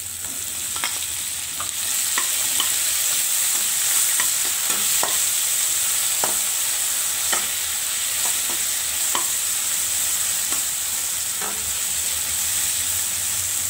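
Sliced tomatoes, garlic and chillies sizzling in hot oil in a wok, stirred with a metal spatula that clicks and scrapes against the pan at irregular intervals. The sizzle grows louder about two seconds in.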